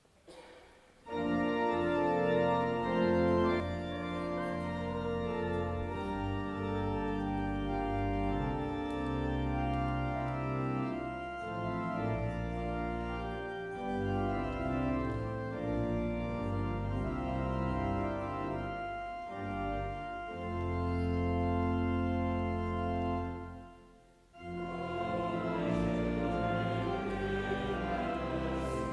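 Church organ playing sustained chords, starting about a second in, breaking off briefly near the end and then resuming.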